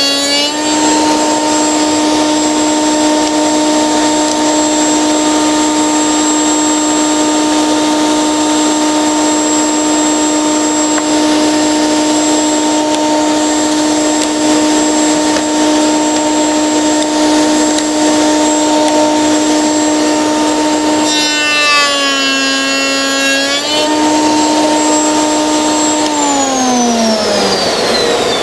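Router in a router table running at full speed, a steady high whine. Near the end its pitch sags for about two seconds as the bit cuts the cope on the end grain of a door rail, then picks back up, and a couple of seconds later the motor is switched off and winds down in a falling whine.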